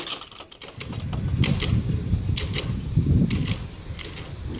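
Lowered level-crossing barriers and their hanging grilles creaking and clicking, a sharp click about once a second, over an uneven low rumble.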